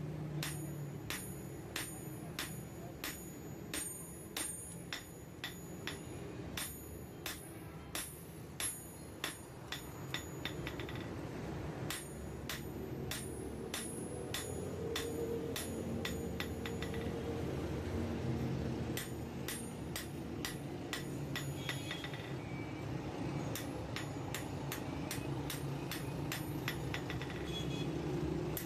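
Hand hammer striking a knife blade forged from an old file on a steel anvil block: a run of sharp, ringing blows about two a second, thinning out midway and picking up again near the end, over a steady low background noise.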